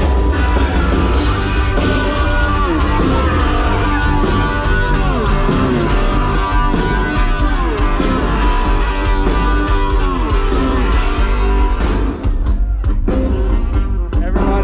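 Live rock band playing through a concert PA, heard from among the audience: electric guitar over heavy bass and drums.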